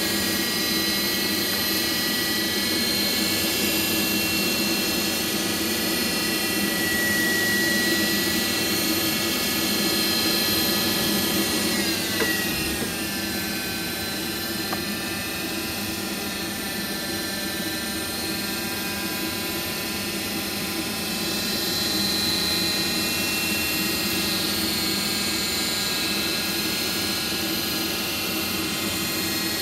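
Rinnai 167 RMF gas boiler humming steadily with a whine of several tones, its fan running while the boiler fails to fire. About twelve seconds in the pitch drops and settles lower.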